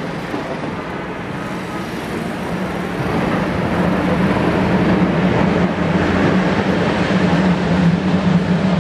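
A pair of HXD1C electric locomotives heading a train come close and pass. A steady low hum and rolling noise grow louder from about a third of the way in.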